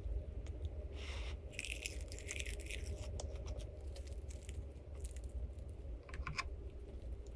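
Short crinkling and clicking handling noises, a cluster about a second in and another near the end, over a low steady hum.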